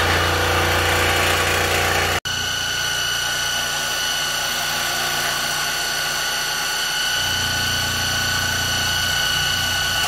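Dremel Moto-Saw compact scroll saw running steadily with a high whine while its blade cuts a 1/8-inch cedar board. The sound drops out for an instant about two seconds in.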